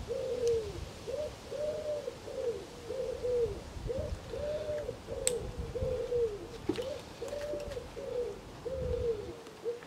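A pigeon or dove cooing: a long, unbroken run of low, rounded coos, one to two a second, with a single sharp click about halfway through.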